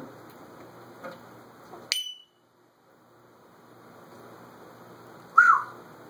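African grey parrot giving two short calls: a sharp chirp about two seconds in, and a louder brief whistled note that rises and falls near the end, with a few soft clicks before.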